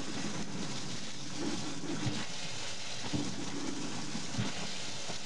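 Kitchen sink sprayer spraying a steady stream of water onto a bare plastic keyboard frame, splashing into a stainless steel sink, with a few low thumps along the way.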